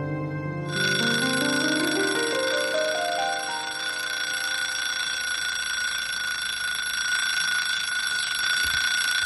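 Soft background music, a rising run of piano-like notes, fades out over the first few seconds. Under a second in, a steady high-pitched cicada chorus comes in and carries on unbroken.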